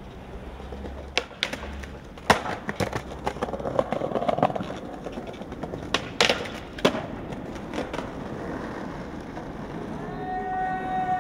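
Skateboard on concrete: wheels rolling and sharp clacks of the board being popped and landed, the loudest about two seconds in and another pair around six to seven seconds in. A steady pitched tone starts near the end.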